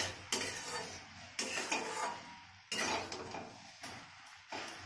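Metal spatula scraping and knocking against a metal kadai as spinach and mixed vegetables are stirred, in a string of separate strokes.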